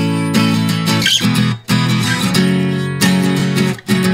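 Background music: strummed guitar chords, changing about every second with brief breaks between them.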